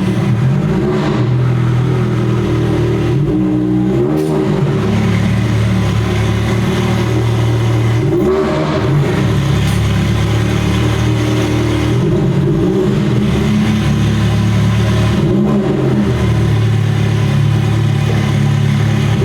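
A car engine running at low revs, with its pitch shifting up and down a few times as it is lightly revved.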